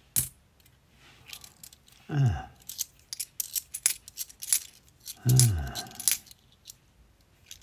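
Bimetallic £2 coins clinking against each other as a stack is shuffled and turned over in the hands: a string of small, sharp metallic clicks. A man's voice gives two short murmurs, falling in pitch, about two and five seconds in.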